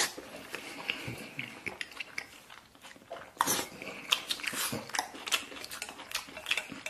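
Close-up eating sounds of a person chewing sticky instant noodles: irregular wet smacks and clicks from the mouth, with a few louder bites.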